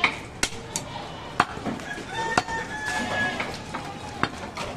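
A long butcher's knife chopping goat meat on a wooden log block, making sharp, irregular strikes several times. A rooster crows once in the background about two seconds in.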